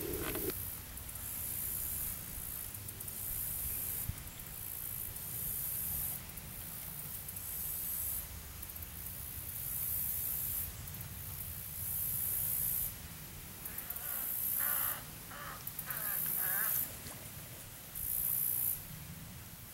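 Swamp insects buzzing in a high drone that swells and drops every second or two. Near the end a bird calls four short times.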